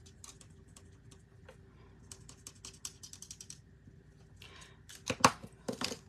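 Alcohol marker tip scratching and tapping on cardstock in quick short colouring strokes, then a few louder sharp clicks about five seconds in as marker caps are pulled off and pushed back on while switching pens.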